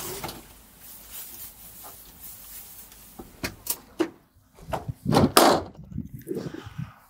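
A few sharp clicks and knocks over a faint low hum, then a louder, longer clunk about five seconds in and a few small ticks near the end.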